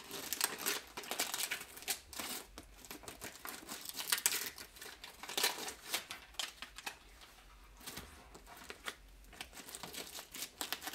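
Paper backing being peeled off adhesive tape on a seat heater element and crinkled in the hands: irregular crackling and rustling, thinning out after about seven seconds.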